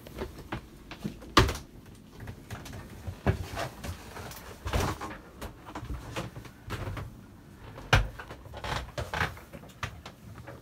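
Irregular knocks and bumps of someone moving through a small yacht cabin, with two sharp, loud knocks about a second and a half in and again about eight seconds in.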